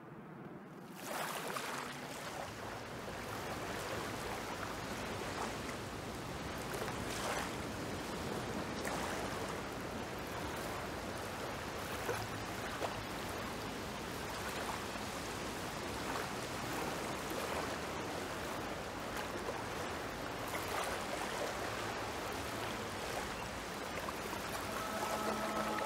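Waves washing steadily against the shore, with small splashes now and then, starting about a second in. Soft music comes in near the end.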